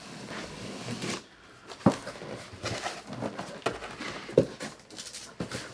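A cardboard TV box being opened and handled: irregular rustling and scraping with scattered knocks, two of them sharper, about two and four and a half seconds in.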